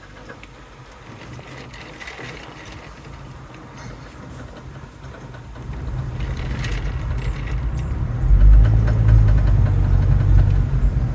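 2019 Mazda CX-5 driving slowly with a knocking, tapping sound while turning, which the owner suspects is a bad CV axle. The low running noise grows louder about six seconds in.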